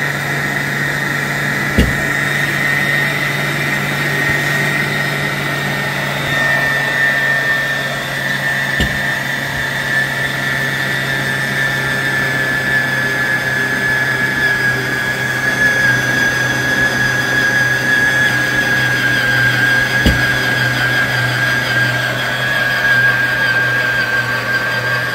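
Electric stand mixer running, kneading flour, salt and hot water into roti dough in a stainless steel bowl: a steady motor hum with a high whine that drops slowly in pitch. Three sharp knocks come through along the way.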